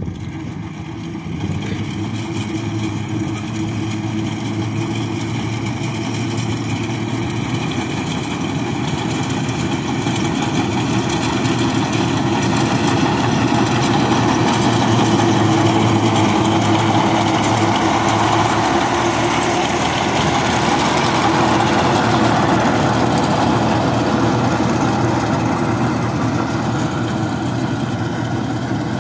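Tractor's diesel engine running steadily while its mounted reaper cuts standing sesame crop. The sound grows louder toward the middle as the tractor passes close, then slowly eases as it moves away.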